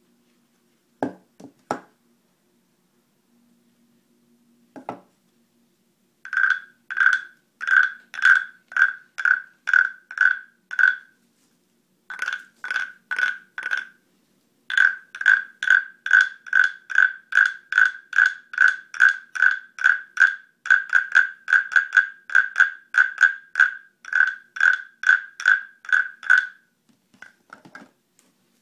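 A carved wooden turtle percussion instrument played with a stick. A few single knocks come first, then the stick is rubbed along the ridged shell in a long run of even scraping strokes, about two to three a second, with two short breaks.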